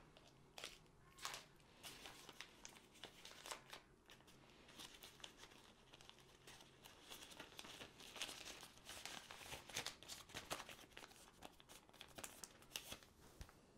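Faint crinkling and rustling of thin plastic packaging handled by hand, with small clicks and taps, busiest in the middle.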